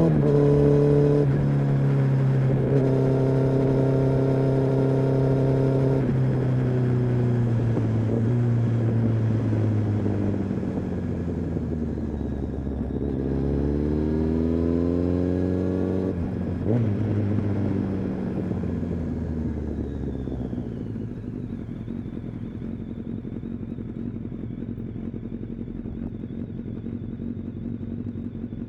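Kawasaki ZX-10R's inline-four engine and exhaust: steady revs at first, then falling as the bike slows, a short rise in revs about halfway through, falling again, and settling to a low, quieter idle for the last third.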